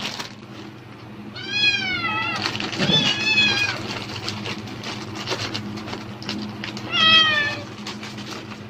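A domestic cat meowing three times, pitched calls that rise and fall, over the crinkling of a plastic bag. The cat is reacting to the bag rustling, which the owner takes as the cat expecting food.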